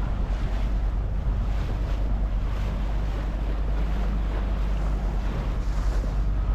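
Small tour boat's motor running steadily with a low hum, over water splashing past the hull and wind buffeting the microphone.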